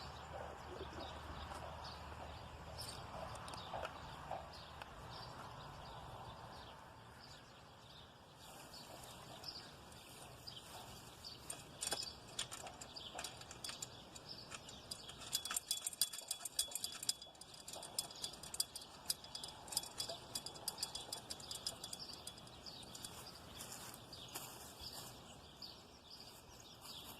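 Faint outdoor background with scattered small clicks and knocks and a few short, high chirps.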